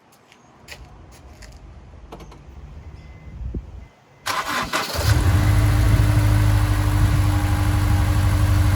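Honda S2000's four-cylinder engine being started: a few faint clicks, then the starter cranks about four seconds in, and the engine catches and settles into a steady idle. It idles on a freshly fitted drive belt, with no belt squeak.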